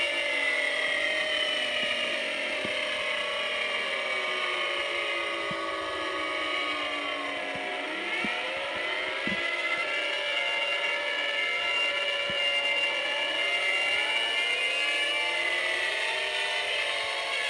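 Several outdoor tornado warning sirens wailing at once, their overlapping tones sliding slowly down in pitch, rising again about halfway through, and falling once more near the end.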